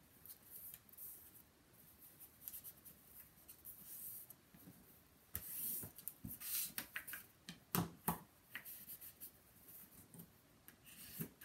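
Stiff black cardstock pages rubbed and slid by hand on a cutting mat as glued pages are folded over and pressed flat: soft scratchy paper rubbing, a louder rustle about halfway through, then a few light clicks and two sharper taps around eight seconds in.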